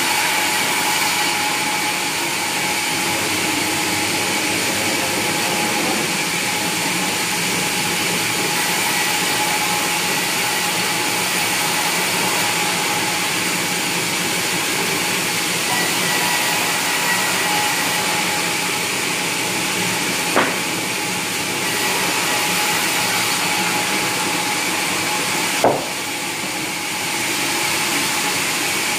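Sawmill saw running steadily with a continuous whine. Two sharp knocks, one about two-thirds of the way in and one near the end.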